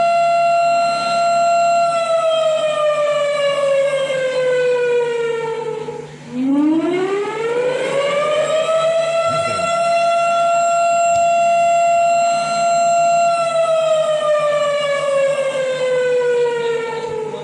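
Siren wailing in slow cycles. A steady high tone slides down, briefly dips out about six seconds in, winds back up from a low pitch, holds steady, and slides down again near the end.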